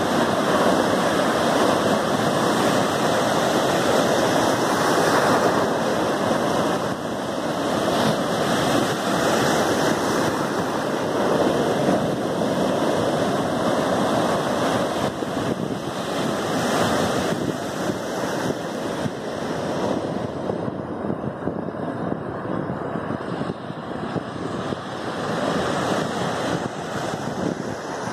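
Sea surf breaking close in and foamy water rushing over the shallows in a continuous wash that swells and eases. The hiss of the surf grows duller for the last several seconds.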